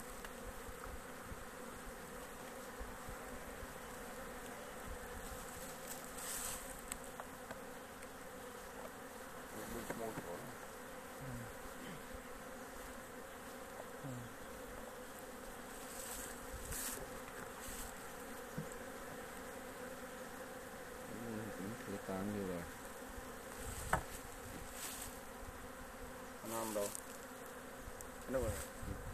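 Honeybees buzzing in a steady, dense drone from an opened wooden frame hive. A few brief knocks and scrapes sound over it, the sharpest about two-thirds of the way through.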